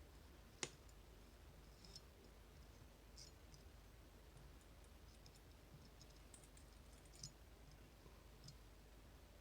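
Faint scattered clicks of a magnet-tipped pick working the magnetic sliders inside a MIWA magnetic slider lock, with a sharper click just under a second in and another about seven seconds in.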